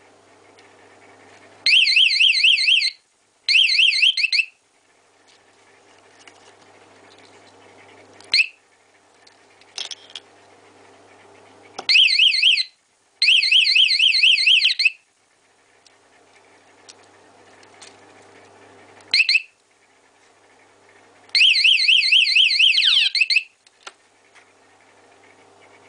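Motorcycle vibration-sensor anti-theft alarm going off in several bursts of a fast-warbling siren tone, each one to two seconds long, with single short chirps in between. This is the alarm being set off by movement of the bike.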